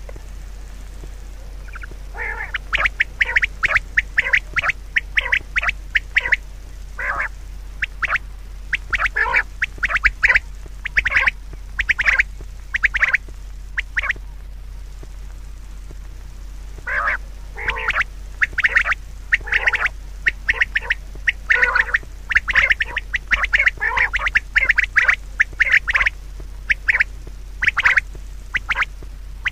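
Rapid runs of short, harsh bird calls, several a second, breaking off for about two seconds midway, over a steady low hum.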